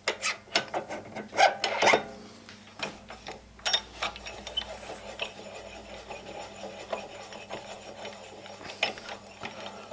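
Sharp metal clicks and knocks in the first two seconds as a drill chuck's MT2 arbor is worked into the lathe tailstock, then a steady dry rasping rub with a few more clicks, typical of the tailstock handwheel and feed screw being turned.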